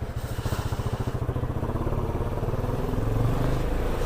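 Motorcycle engine running steadily with a fast, even pulse.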